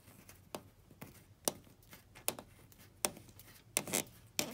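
Plastic radiator drain petcock being turned by hand to open it for draining coolant, giving a string of irregular sharp clicks and ticks, about seven in all.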